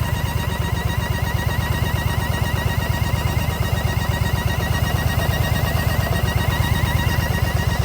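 Yamaha XV950 Bolt's air-cooled V-twin running at a steady idle with an even, rapid pulsing beat, with an intake manifold air leak behind its abnormal noise.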